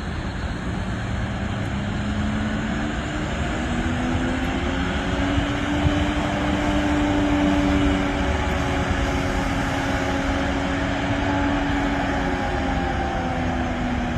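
Diesel-electric switching locomotive running as it shoves a long train of tank cars and hoppers past, a steady engine drone over a rumble that swells slightly in pitch and loudness, peaking about eight seconds in.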